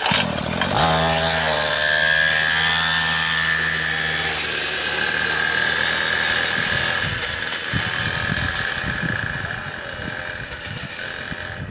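Go-kart engine running, with a steady pitched note at first, then driving off and growing quieter over the last few seconds as the kart moves away.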